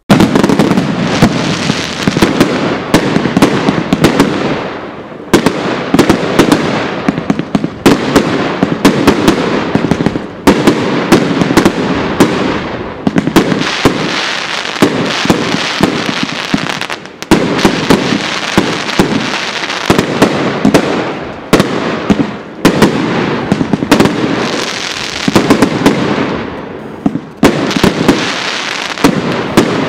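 Tropic TB 208 138-shot firework cake firing: a rapid, unbroken stream of shots and bursting reports, several a second, starting suddenly and easing briefly three times before picking up again.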